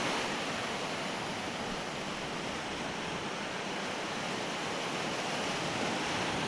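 Surf washing onto a shallow sandy beach: a steady, even hiss of breaking waves.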